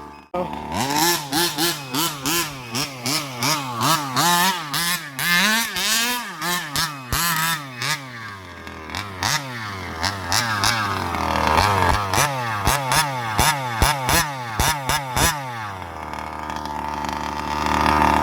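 A 1/5-scale petrol RC car's small two-stroke engine revving up and down in quick throttle bursts as it drives, then in longer rising and falling sweeps in the second half.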